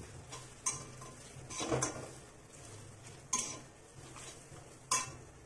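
Steel spatula scraping and clinking against a metal kadai while stirring dry-roasting grated coconut, dried red chillies and coriander seeds. About four sharp clinks, the loudest near five seconds in.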